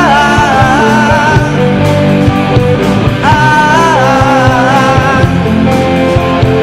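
Live rock band with electric guitars and drums, a male singer holding two long sung lines, the second coming in about three seconds in.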